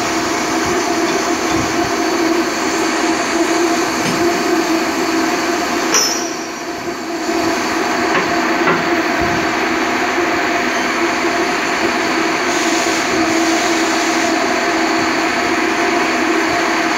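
Steady drone of workshop machinery with a constant hum, and a few faint knocks of metal at the bench vise.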